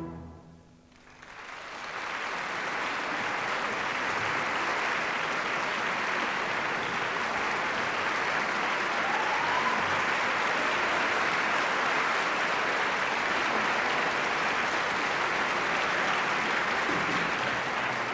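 An orchestra's final chord with piano dies away, and after a brief hush a concert-hall audience breaks into applause that builds within a second and then holds steady.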